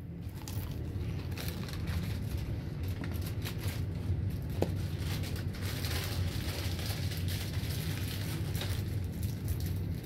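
Crunchy snacks being chewed close by, an irregular crackling crunch, over the steady low hum of a Hunter Original ceiling fan's motor running at a middle speed on a variable speed control.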